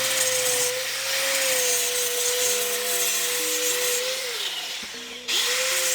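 Power grinder grinding down the rough surface of a TIG weld pass before the hot pass, a harsh grinding noise over a steady motor whine. The grinding eases off for about a second a little after four seconds in, then bites again.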